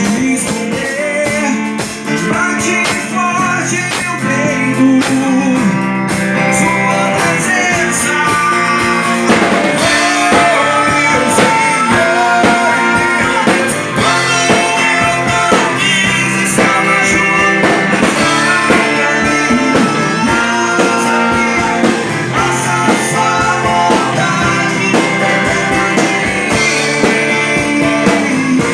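Rock music: electric guitar, bass and drums playing a steady beat, with a melodic lead line over it.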